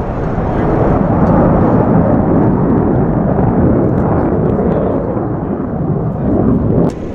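F-35A Lightning II's single F135 turbofan in afterburner: a loud, rumbling jet noise as the fighter flies its display. It swells over the first second, holds steady, and drops off suddenly near the end.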